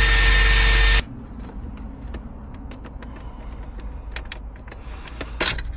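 A loud steady noise with a fixed whine that cuts off abruptly about a second in, followed by quiet scattered clicks and taps.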